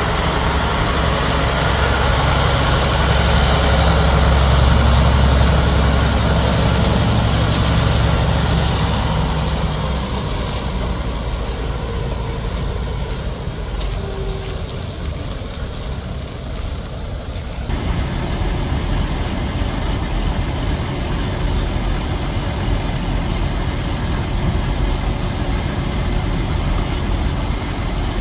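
Case 2470 four-wheel-drive tractor's diesel engine running as the tractor is driven, heavier for about the first ten seconds and then settling to a lower, steadier run.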